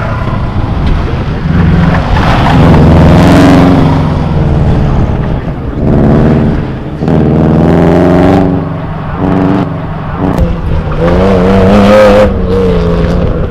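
A car's engine being driven hard on an autocross course, its pitch climbing and dropping several times as the driver accelerates, lifts and shifts.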